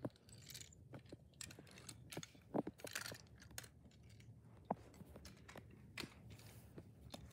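Faint handling noise: scattered small clicks and taps with light rustling as toy cars and the phone are handled over a rug, the clearest taps about two and a half and just under five seconds in.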